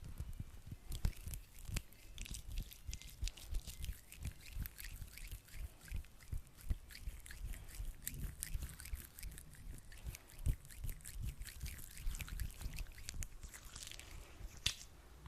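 Sticky aloe vera gel being rubbed between hands close to the microphone: a continuous run of wet, tacky clicks and squelches with soft low thumps.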